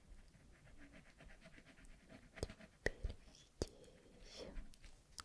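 Quick back-and-forth colouring strokes on paper, soft and rapid, then a few sharp clicks or taps a couple of seconds in.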